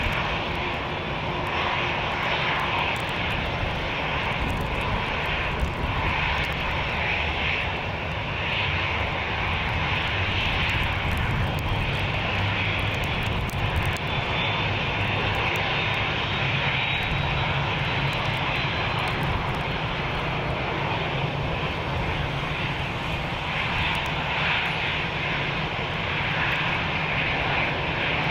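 Jet airliner engines running on an airport apron: a steady rumble and hiss, with a faint high whine rising slowly through the middle.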